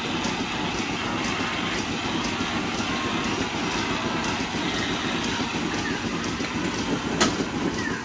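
Steady running noise of milking-parlour machinery, with a single sharp click about seven seconds in.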